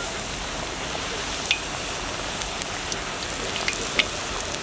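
Aloo puris (wheat-and-potato dough) deep-frying in hot oil in a large iron kadai: a steady sizzling hiss of bubbling oil, with a few sharp pops and crackles.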